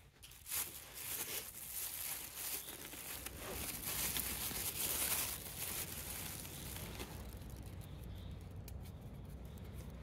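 Close rustling and crinkling handling noise with many short crackles, loudest around four to five seconds in, then settling into a fainter steady rustle.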